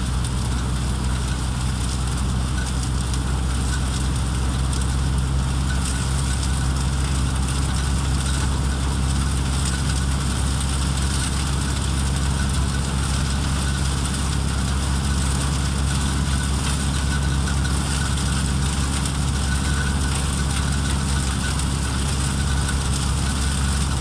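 Peanut threshing machine running steadily as harvested vines are fed through it: a low, even drone with a constant rushing hiss.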